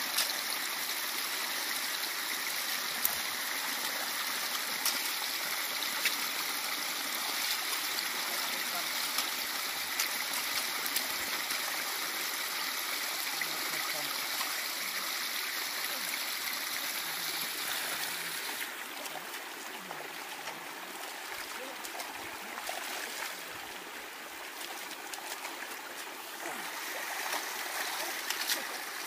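Water running steadily out of a drained earthen fish pond through an outlet dug in the bank, trickling and rushing, with small splashes. About two-thirds of the way through, it turns quieter and duller.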